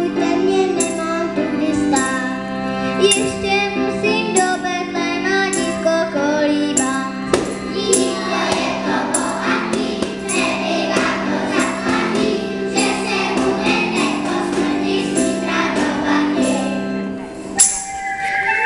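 Children's choir singing a song with a tambourine struck on the beat, over a steady held accompaniment note. The singing stops near the end, followed by a single loud tambourine hit.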